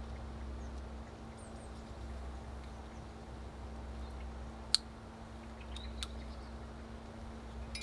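Plastic trimmer-head spool and nylon mowing line being handled and wound, over a steady low background hum: one sharp click about halfway through, then a couple of lighter ticks near the end.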